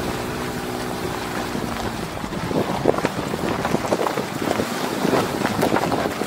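Truck driving a dirt and gravel trail, heard from a camera mounted on its outside: wind rushing over the microphone and tyres on loose gravel with many sharp ticks of small stones. An engine's steady drone is heard for the first couple of seconds, then fades under the wind.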